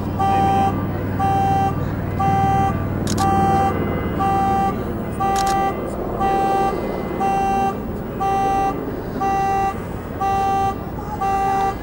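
Car alarm sounding, its horn honking in an even repeating pattern of about four honks every three seconds, over a low rumble that dies away in the first few seconds.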